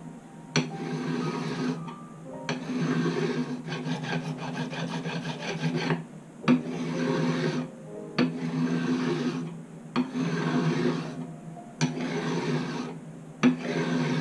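A file scraping along the stainless steel frets of an electric guitar neck in repeated back-and-forth strokes, each a second or two long and most starting with a click. One longer stroke in the middle ticks rapidly as the file rides across the frets.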